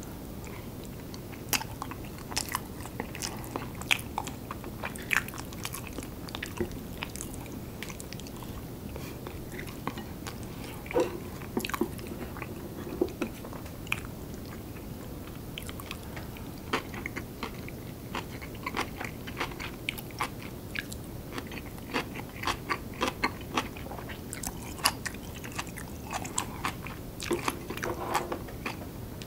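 Close-miked chewing of curry rice and kimchi, with the crunch of the kimchi and many short, wet mouth clicks.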